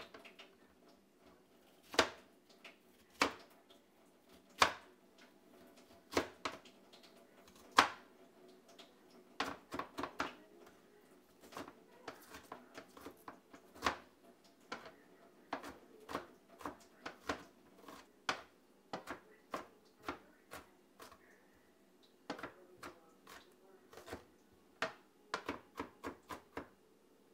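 Chef's knife chopping an onion on a plastic cutting board. There are a few separate, heavier cuts at first, then quicker runs of chops from about nine seconds in.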